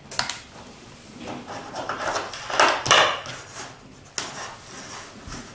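Handling noise of a plastic smartphone dock and its power cable: a few sharp clicks as the plug is pushed into the socket, then rubbing and rustling of cable and casing, and another click about four seconds in.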